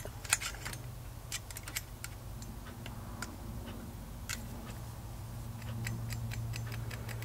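Irregular light metallic clicks and taps of a screwdriver working inside a small RC model engine, trying to free a piston that has jammed at the top of its stroke, over a steady low hum.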